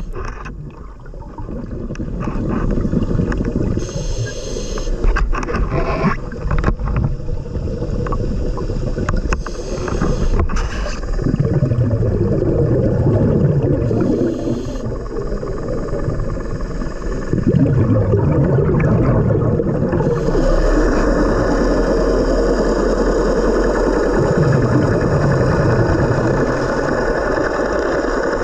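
Underwater drone of a boat's engine and propeller, a low sound whose pitch slowly rises and falls and which grows louder about twenty seconds in. Over it, the diver's scuba regulator breathing: hissing inhalations every few seconds and bubbling exhalations.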